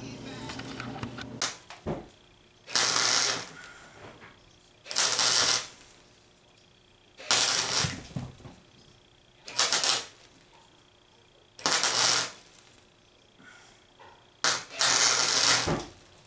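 MIG welder crackling in six short welds, each about a second long, a couple of seconds apart, with quiet pauses between.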